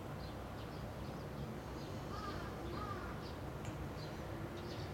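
Small birds chirping in short, repeated high notes, with two slightly lower arched call notes a little past the middle, over a steady low background rumble.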